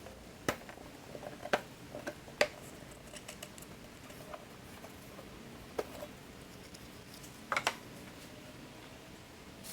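A handful of sharp, isolated clicks and knocks over a faint steady background: single ones spread through the first six seconds, then a quick pair near the end.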